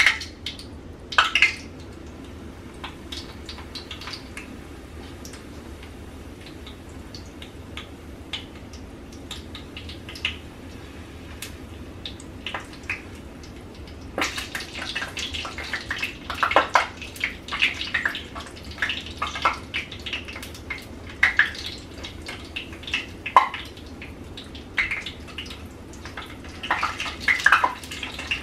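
Hot cooking oil in a skillet crackling and popping as a tortilla fries in it. The popping turns much denser about halfway through, when the tortilla goes into the pan, with a few clinks of tongs against the pan.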